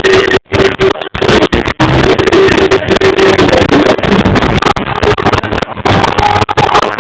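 Live reggae band music recorded through an overloaded phone microphone, heavily distorted and smeared into a loud roar, with brief dropouts in the first two seconds.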